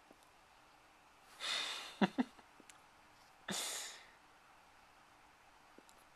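A Yorkie puppy with the hiccups: a breathy huff just over a second in, then two quick hiccups a split second apart, and another breathy huff about three and a half seconds in.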